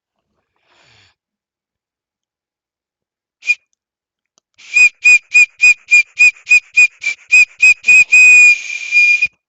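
A cartoon bike horn tooting in a high, whistle-like tone: one short toot, then a quick run of about a dozen toots at about three a second, then one held toot that cuts off.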